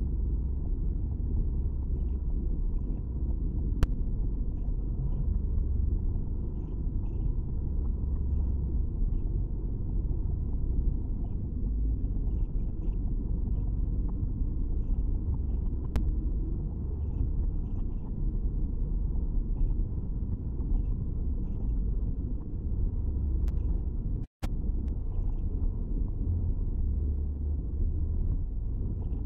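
Steady low road and engine rumble inside the cabin of a Buick HRV driving at expressway speed. A few faint ticks, and the sound cuts out for a split second about three-quarters of the way through.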